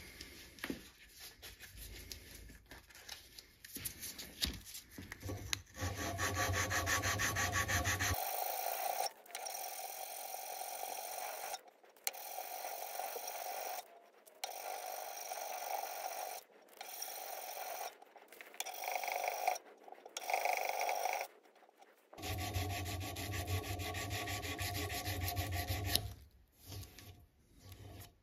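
Abrasive paper rubbed back and forth across the steel muzzle face of a muzzleloader barrel, wet-sanding it flat. The rubbing comes in quick runs of strokes at first, then in longer runs broken by short pauses.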